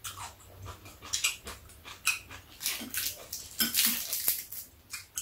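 Mealtime eating noises: wet chewing, smacking and slurping of noodles, in short irregular bursts, with metal chopsticks clicking against the dishes, one sharp click about four seconds in.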